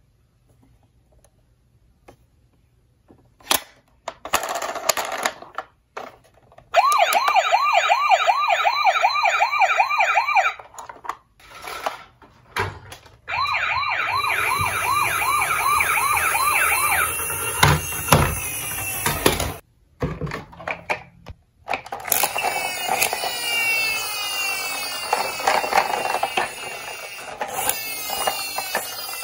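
Toy ambulance's electronic siren: a fast warbling wail in two bursts of a few seconds each, then a low rumble as a toy rolls down a particleboard ramp. Later a second toy siren sounds, made of repeated falling sweeps.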